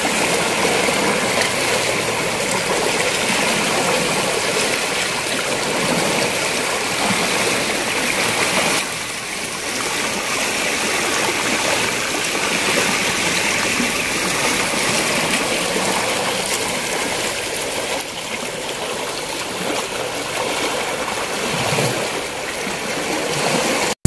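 Swollen floodwater rushing and churning through a small canal, fast and turbulent with eddies, a steady dense rush of water.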